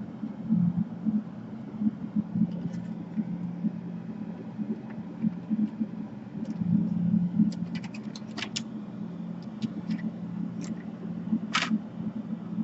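A steady low hum runs throughout. About seven and a half seconds in comes a quick run of sharp clicks and taps, with one more near the end, as the laptop's plastic case parts are handled.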